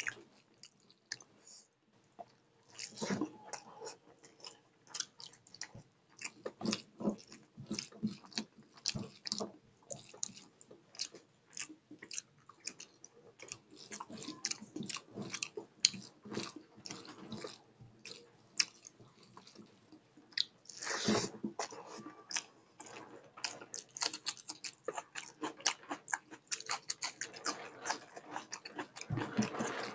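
Close-up chewing and lip smacking of rice and egg curry eaten by hand: a steady run of short wet clicks, louder now and then.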